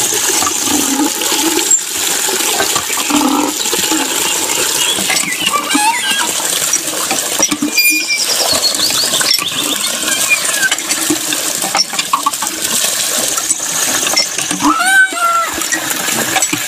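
Water pouring steadily from a thin plastic tube into a small puddle in a sand pit, with a continuous splashing, gushing noise. A few short chirping calls sound over it.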